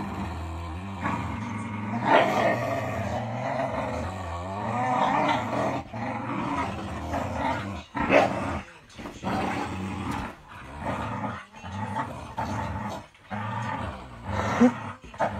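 Dogs growling in play as they tug on a rope toy, a steady growl with a few louder snarls, one about two seconds in, one about eight seconds in and one near the end.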